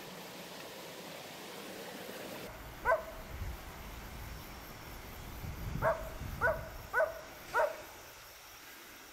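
Dogs barking by a river: a single short bark, then a run of four barks about half a second apart.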